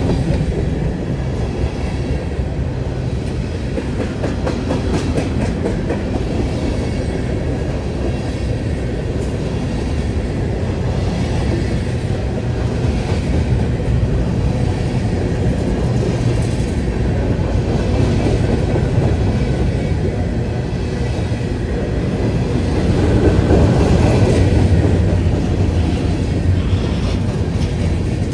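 Freight train cars rolling past on the rails, a steady heavy rumble that swells briefly louder about three quarters of the way through.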